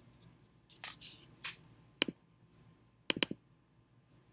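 Computer mouse clicks: a single sharp click about two seconds in and a quick double click about three seconds in, with softer scuffing sounds about a second in.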